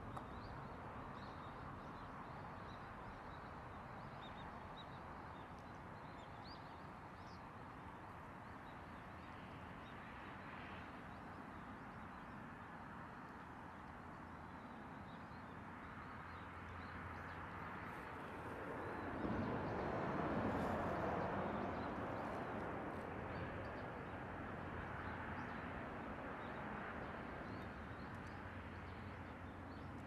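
Outdoor background noise with faint, short bird calls. The noise swells for a few seconds about two-thirds of the way through.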